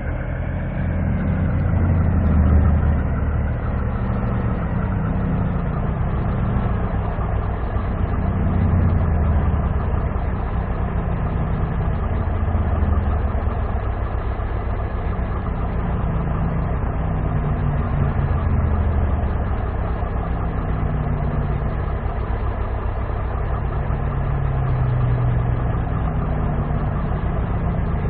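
Mercedes-Benz 1944 truck's turbocharged diesel engine running steadily at idle.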